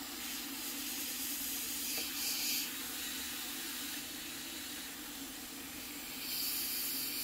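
Hot-air gun blowing on heat-shrink tubing to shrink it: a steady hiss of air over a steady fan hum. The hiss swells briefly about two seconds in and again near the end.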